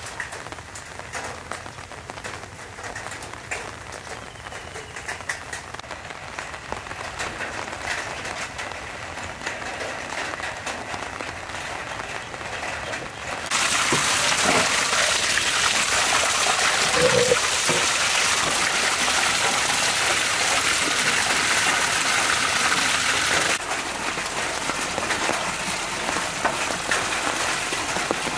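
A light, steady patter of water, then about halfway through a loud, steady rush of tap water pouring from a pipe into a large aluminium basin over racks of beef ribs, easing somewhat a few seconds before the end.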